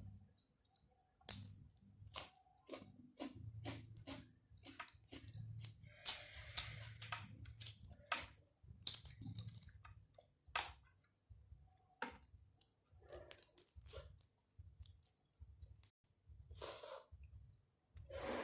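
Close-up chewing of boiled chicken and rice, with many short wet mouth clicks and smacks.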